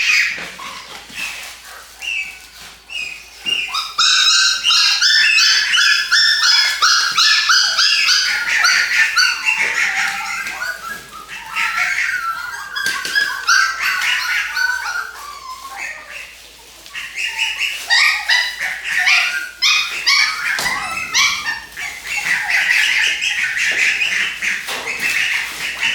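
Dogs whimpering and yipping, many short high-pitched cries overlapping almost continuously, thinning briefly about two-thirds of the way through.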